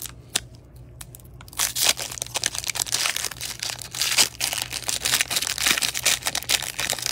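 Foil trading-card pack wrapper (2021 Panini Mosaic NFL) being torn open and crinkled by gloved hands. A few light clicks at first, then dense crinkling from about a second and a half in.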